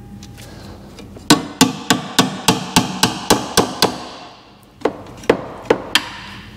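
Hammer blows on a car's steel wing-bracket mount to knock it free after its spot welds were drilled out. A rapid run of about ten sharp, ringing strikes, three or four a second, then a short pause and three more. One spot weld had been missed, but the mount comes off.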